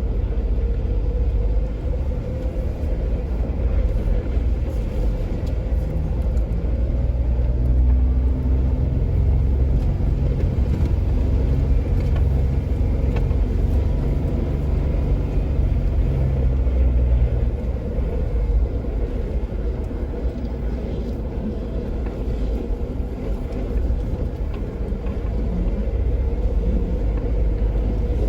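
Jeep Wrangler driving along a dirt trail: a steady low rumble of engine and tyres, heavier for a stretch in the middle.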